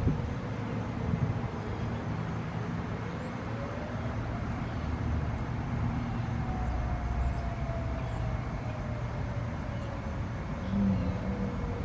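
Federal Signal Modulator 2008 outdoor warning siren sounding its wail cycle, faint: the pitch rises for a couple of seconds, then falls slowly. A steady low rumble lies beneath it, with a short louder swell near the end.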